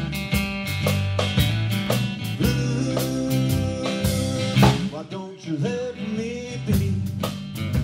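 Acoustic country blues band playing, with a cross-harp harmonica taking the lead and bending notes over guitar, bass and drums.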